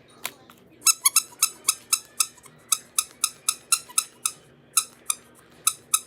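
Plastic fidget toy being worked with the fingers: a rapid run of sharp pitched pops or clicks, about four a second, starting about a second in.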